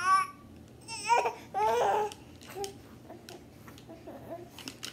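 A five-month-old baby babbling and squealing in three short high-pitched bursts in the first two seconds, one with a quick wavering pitch, then only faint sounds.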